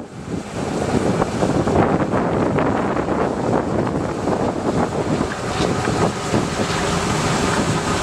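John Deere combine harvester running while it cuts standing dry corn: a steady, dense machine noise with a constant crackle through it, and wind on the microphone.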